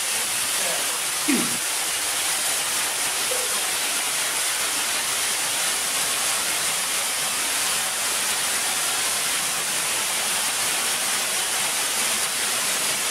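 A steady, even hiss with no change in level, and a brief voice about a second in.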